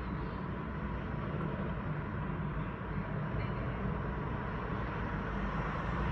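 Steady city traffic noise: a broad rumble and hiss of road vehicles that grows slightly louder near the end.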